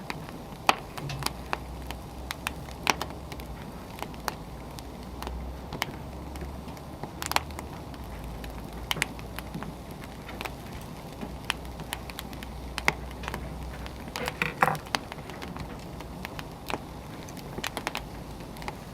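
Firewood burning, crackling with irregular sharp pops over a steady low rumble, with a brief flurry of louder pops about three-quarters of the way through.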